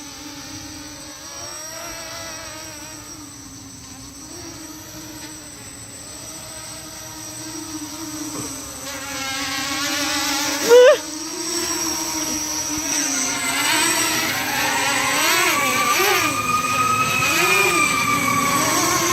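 Quadcopter drone motors and propellers whining steadily, the pitch wavering up and down as the throttle changes in flight. There is a short sharp rising sound about eleven seconds in. In the last few seconds the sound grows louder, with a higher tone that rises slowly and then falls.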